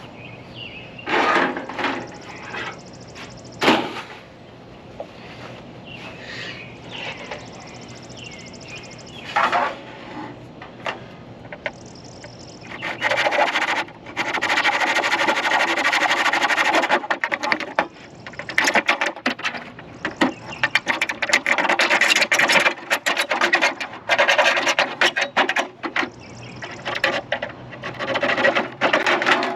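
Hacksaw cutting through a gutter downspout: a few short scrapes and knocks at first, then, from about halfway, long runs of rapid rasping saw strokes.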